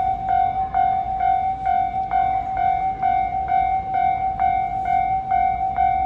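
Japanese railway level-crossing warning bell ringing continuously: an electronic clanging tone repeating evenly a little over twice a second, the signal that a train is approaching and the barriers are down.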